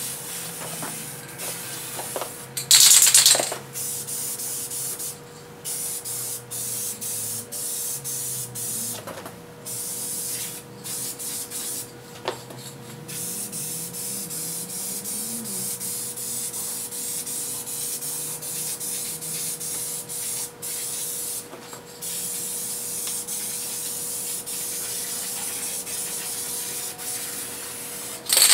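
Aerosol spray can of metallic paint spraying a coat onto a car fender: a steady hiss in long passes broken by short pauses. A brief, much louder noise about three seconds in.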